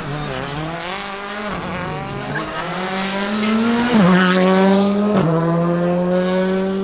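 Rally car engine under hard acceleration, its note climbing and then dropping sharply with two quick upshifts about four and five seconds in. It is loudest around the shifts.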